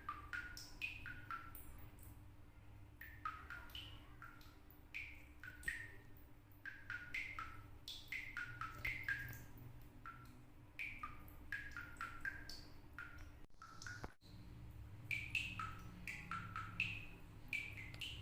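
Water dripping from a tap, each drop landing with a short pitched plink, in a quick uneven patter of several drops a second that sounds almost like music. A faint steady hum runs underneath.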